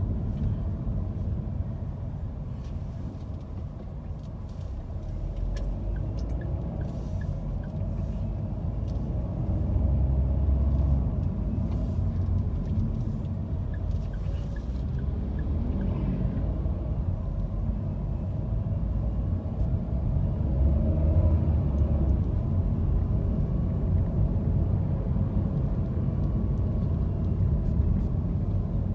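Low, steady rumble of a car driving in city traffic, swelling slightly a couple of times.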